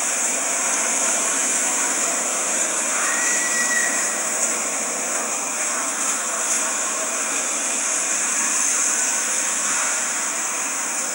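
Steady hiss, strongest in the high range and even in level throughout, with no speech over it.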